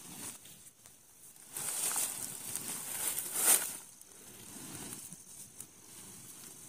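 Dry corn leaves and stalks rustling as a full sack is dragged and shifted over them, louder from about a second and a half in, with the loudest rustle a little past the middle, then quieter.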